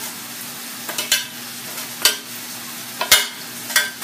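A utensil scraping across the bottom of a metal baking pan, spreading tomato sauce in four short strokes about a second apart, over a steady low hum.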